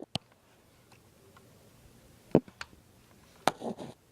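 A few sharp plastic clicks and knocks as a Double Eagle G36C airsoft gun is handled and opened up, spread over a few seconds with quiet room tone between them.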